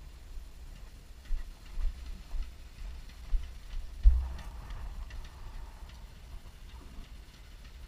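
Footfalls and jostling gear of a soldier running over grass with a body-worn camera: irregular low thumps, the heaviest about four seconds in.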